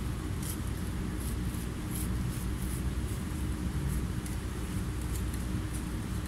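Steady low room hum, with faint, irregular light scrapes about two or three times a second as a knife separates tilapia skin from the fillet while the skin is pulled.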